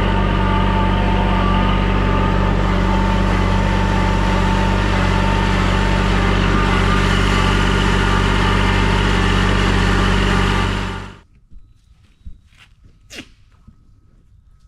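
An engine running steadily at one speed, with no revving, that cuts off abruptly about eleven seconds in; a few faint clicks follow.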